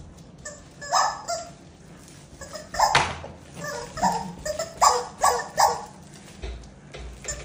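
A man imitating a dog: a string of short, loud barks and yelps, some in quick pairs.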